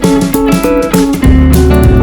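Background music led by plucked guitar with a steady beat; a fuller bass comes in about a second in.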